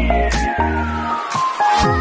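Background electronic dance music with a heavy beat and a long falling sweep. Near the end a falling bass glide leads into softer sustained chords.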